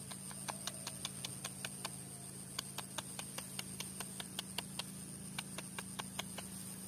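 A rapid, uneven series of small sharp clicks, about four or five a second and varying in loudness, over a steady low hum.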